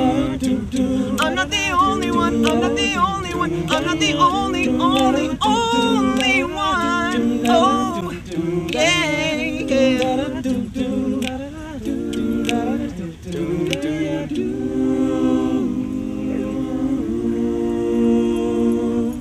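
Vocal group singing a cappella in close harmony with no words: held chords under a lead voice's melismatic runs. It ends on a long held chord that stops suddenly.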